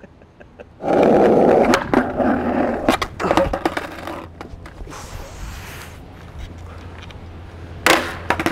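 Skateboard wheels rolling on rough asphalt for about two seconds, then several sharp clacks of the board hitting the pavement as a flat-ground trick is tried and not landed. One more loud clack of the board near the end.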